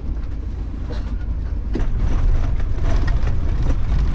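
Motorhome driving, heard from inside the cab: a steady low engine and road rumble with scattered rattles and knocks, growing a little louder about two seconds in.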